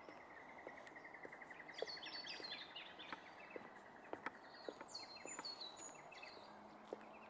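Birds singing: a rapid, even trill for about the first two seconds, then a mix of short chirps with falling notes. Faint footsteps sound on the wooden boardwalk boards underneath.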